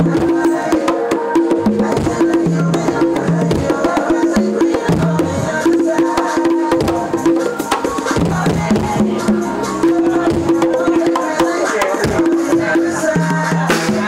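A set of congas played with bare hands in a quick, steady rhythm, over accompanying music with held low bass notes.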